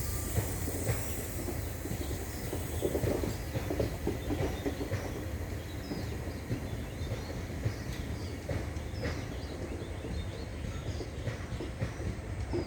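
Passenger train rolling past at steady speed: a continuous low rumble with irregular clicks and clatter of wheels over rail joints.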